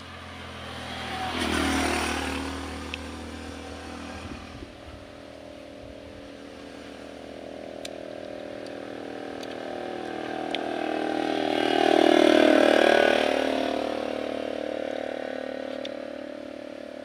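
Motor vehicles passing by twice, the engine noise swelling and fading, first about two seconds in and more loudly around twelve seconds in, over a steady engine hum.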